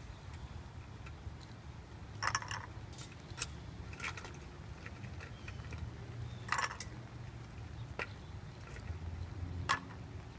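Scattered clinks and knocks of ice being handled in a metal ice bucket and against a glass: about five separate sharp strikes spread through, over a low steady background hum.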